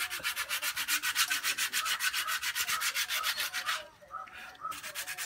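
Sandpaper scrubbed quickly back and forth over a motorcycle drum-brake part to clear built-up dirt that makes the brake noisy, about six or seven strokes a second; it pauses near the end, then a short run of strokes follows.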